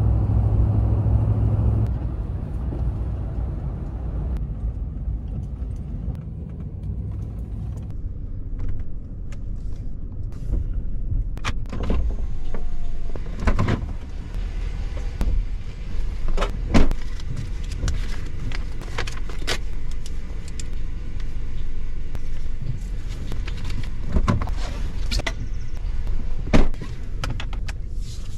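Inside a Ram pickup truck's cab: a steady low vehicle rumble with a strong hum for the first two seconds, then quieter rumble with scattered clicks and knocks from things being handled in the cab in the second half.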